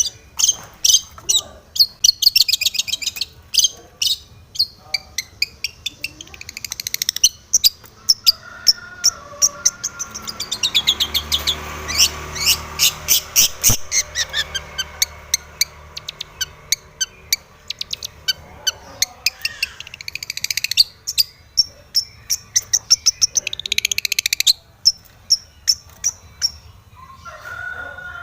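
Long-tailed shrike (cendet) singing: fast runs of harsh, high chattering notes, several a second, broken by short pauses and mixed with a few lower warbled phrases.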